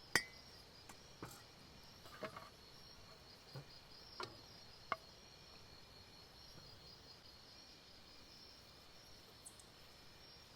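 Crickets chirping steadily and faintly. A sharp clink with a brief ring comes just after the start, likely a lid set on the cooking pan, followed by a few softer clicks and knocks over the next few seconds.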